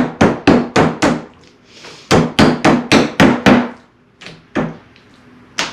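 Metal-headed meat tenderizer mallet pounding raw chicken breasts flat on a wooden cutting board, about four quick blows a second, stopping twice briefly before starting again. The thick ends of the breasts are being beaten thinner.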